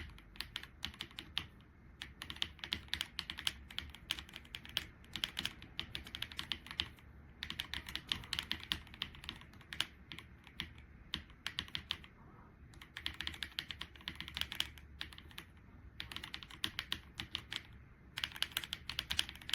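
Typing on a Keychron C3 Pro mechanical keyboard with linear red switches. Rapid key clicks come in runs of a couple of seconds, broken by short pauses.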